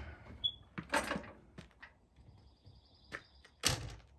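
Camper doors and cupboards being handled during a clean-out: a few sharp knocks, a clattering rattle about a second in, and a thin high squeak just before a last knock near the end.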